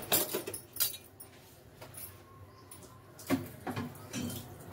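Kitchen clatter: a few sharp clinks and knocks of metal pots and utensils, some at the start and a few more after about three seconds.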